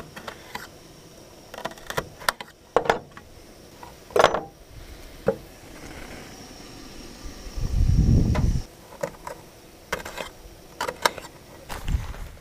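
Scattered clicks and knocks of handling: a knife tapping on a plastic plate, then items clattering in a wooden drawer box. A dull low rumble comes about eight seconds in.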